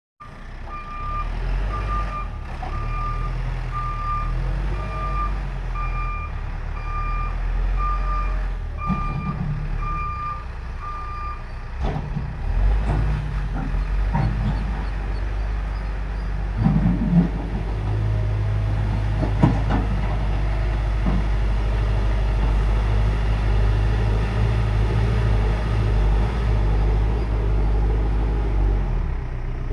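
JCB backhoe loader's diesel engine running, with its reversing alarm beeping evenly, a little faster than once a second, for the first ten seconds or so. After the beeping stops the engine note grows heavier and steadier, with a couple of short knocks.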